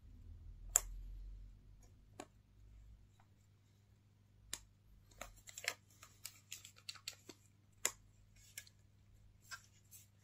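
Clicks and taps of a plastic clamshell handheld game console being handled: a sharp snap about a second in as the lid is closed, then a quick run of small clicks and rubbing in the middle as it is turned over in the hands, and a few more taps near the end.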